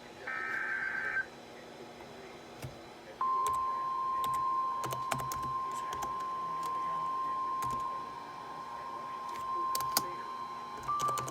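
NOAA Weather Radio emergency alert: a short burst of warbling digital SAME header tones. About two seconds later comes the single steady warning alarm tone, which holds to the end and signals that a warning is about to be read.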